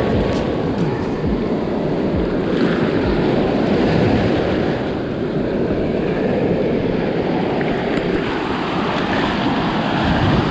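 Ocean surf breaking and washing in the shore break close around the microphone, a steady rush of water.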